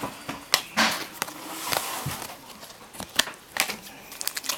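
Trading cards being handled and flipped through by hand: a scattered run of light clicks and short swishes of card stock sliding over card.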